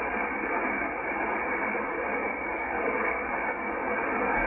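Steady shortwave static hissing from a Yaesu FTdx10 transceiver receiving in upper sideband, its audio cut off sharply above and below the voice band, with no voice on the channel.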